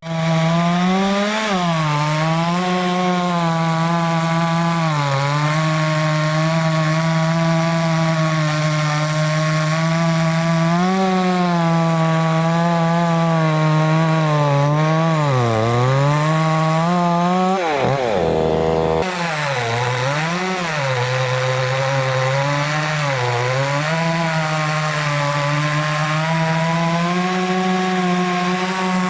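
Chainsaw running at high revs while cutting wood, its engine note dipping again and again as the chain bogs down under load in the cut, then climbing back. The sound breaks off abruptly about two-thirds of the way through and resumes.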